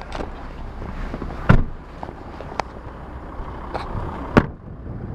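Camera being handled and jostled: rustling and a few sharp knocks, the loudest about a second and a half in, over a steady low rumble.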